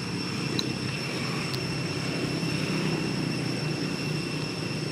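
Steady low engine-like rumble, like a motor or traffic running nearby, under a steady high-pitched whine.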